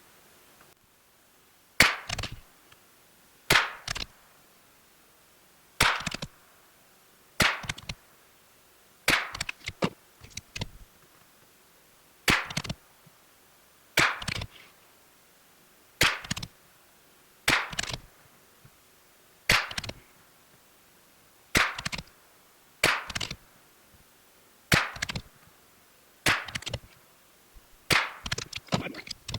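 A CZ 457 bolt-action .22 LR rifle firing CCI Standard 40-grain rounds: about sixteen sharp shots, one every one and a half to two seconds, each followed by a few quieter clicks.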